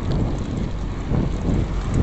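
Wind rushing over the microphone on a moving bicycle: a steady low rumble with road noise.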